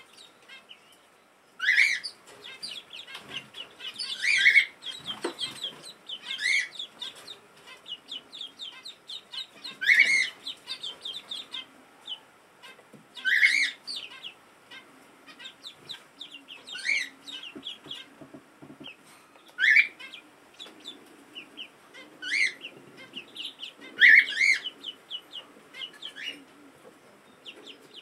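Ducklings peeping: loud, short, upward-sliding peeps every few seconds over a steady run of softer, rapid peeps.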